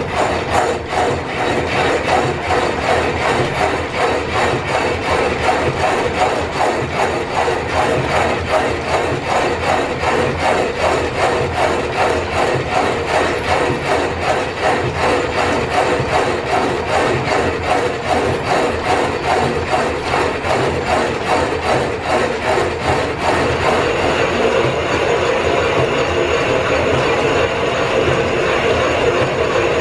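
Belt-driven machinery in a steam-powered line-shaft shop running with a fast, even rhythmic clatter, the sound of a machine tool at work on a cast-iron part. About 23 seconds in, the rhythm gives way to a steadier, brighter running sound.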